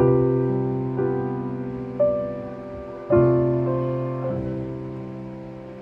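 Background piano music: gentle chords struck about once a second, each left to ring and fade.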